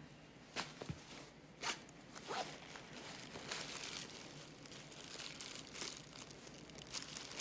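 A few light knocks and clicks, then a plastic bag crinkling and rustling as hands work it out of a hiding place.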